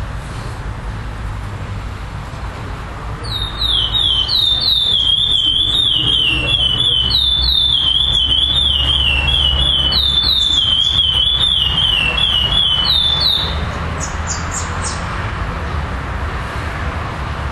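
Adult black male curió (chestnut-bellied seed finch) singing a long, loud run of clear whistled notes, each sliding downward, starting about three seconds in and lasting about ten seconds, in the competition 'clássico' song style. A few short high notes follow, over a steady low background rumble.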